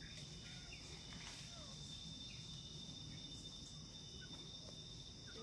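Faint steady drone of insects, crickets or cicadas, holding one high pitch, with a few short faint chirps scattered through it.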